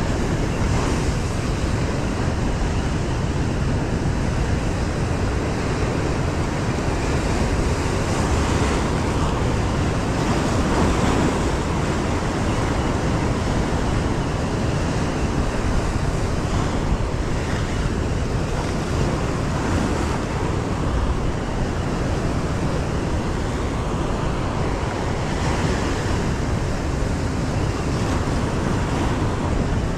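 Heavy surf washing and breaking over rocks, a steady rush of white water, with wind buffeting the microphone.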